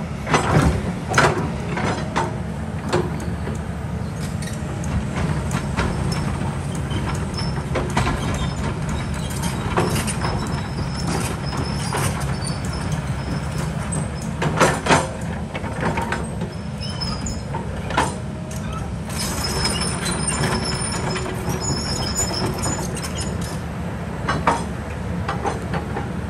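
Kobelco excavator's diesel engine running steadily, with scattered clanks and knocks of the steel bucket against rock, the loudest about halfway through.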